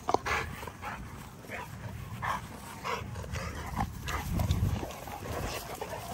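XL American Bully dogs giving short barks and yips, about one every half second, while they wrestle and chase in play, with a low rumble underneath.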